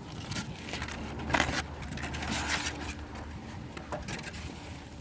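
Wind rumbling on the microphone, with scattered scraping, rustling and clicking handling noises.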